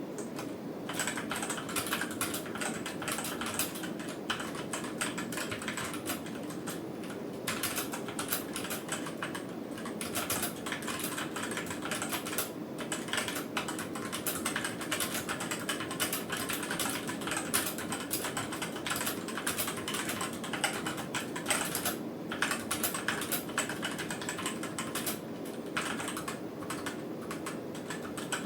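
Typing on a Redragon Kumara mechanical keyboard fitted with red switches and new keycaps: a fast, continuous run of key clacks that starts about a second in, with a couple of brief pauses.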